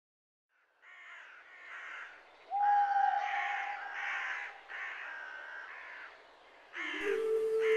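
A crow cawing again and again, about seven harsh calls less than a second apart. Music with a held low note comes in near the end.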